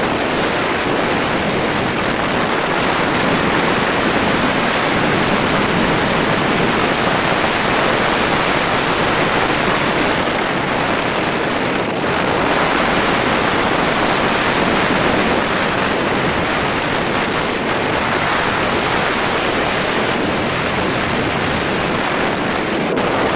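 Steady rush of wind buffeting the microphone of a camera riding on a moving scooter, with no clear engine note standing out.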